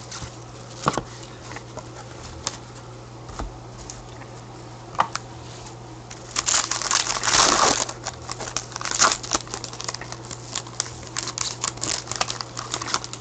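A trading card pack's wrapper being torn open and crinkled by hand. There are a few light clicks and rustles of cards being handled first, then a loud ripping rustle for about a second and a half just past the middle, then rapid crinkling.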